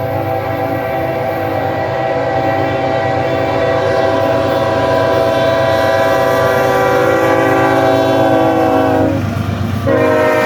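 Diesel locomotive air horn sounding one long blast over the low rumble of the passing train. It breaks off briefly near the end, then sounds again.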